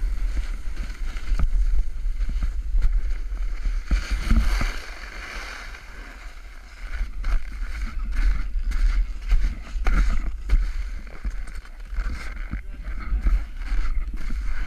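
Wind buffeting a body-worn action camera's microphone while riding down a groomed snow run, with the hiss and scrape of sliding on packed snow. It drops for a moment about five seconds in, then picks up again.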